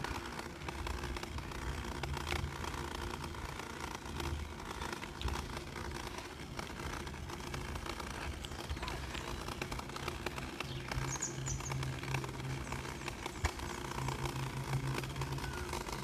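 Steady low rumble of wind on the microphone mixed with bicycle tyres rolling along a park path while riding, with a short high chirp about eleven seconds in.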